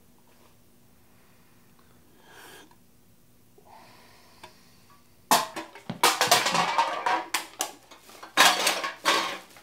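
After a few quiet seconds with one or two faint small sounds, a white plastic bag crinkles and rustles loudly in a run of crackly bursts as it is carried, with the things inside it knocking together.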